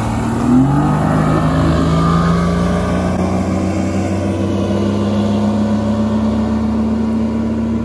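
Mercury Pro XS outboard motor on a Ranger bass boat accelerating hard from near standstill: its pitch climbs in the first second, then it holds a steady note running at speed.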